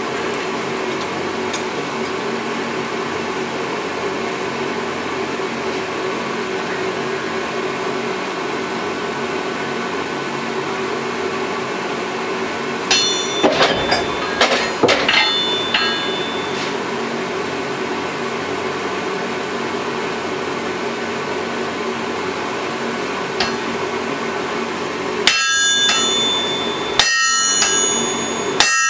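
Hammer blows on hot steel at an anvil while forging a claw hammer, over a steady background drone. About halfway there is a quick run of ringing hammer strikes. Near the end come three heavy sledgehammer strikes about one and a half seconds apart, each ringing off the steel and anvil.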